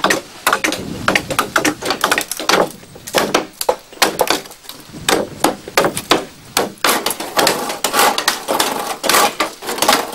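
Hammer blows on the wooden planks of a boat hull under construction: a steady run of sharp, irregular knocks, as several strikes follow one another each second.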